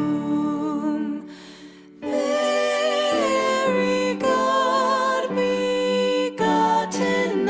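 Background music: a slow song with a sung melody over instrumental accompaniment, dropping out briefly about a second and a half in.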